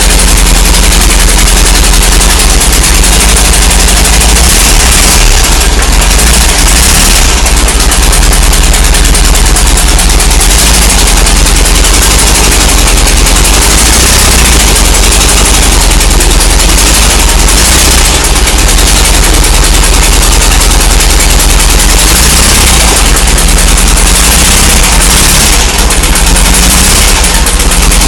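Volkswagen Beetle's 1600 dual-port air-cooled flat-four engine running loudly on its first start after a rebuild, with a rapid, staccato exhaust beat.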